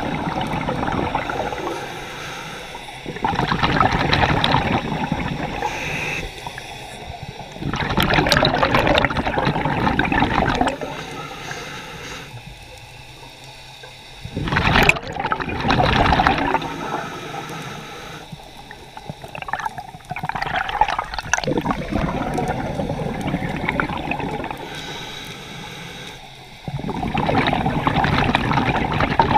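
Scuba diver breathing through a regulator underwater: five rushes of exhaled bubbles a few seconds apart, with quieter stretches between them. The loudest rush comes about halfway through.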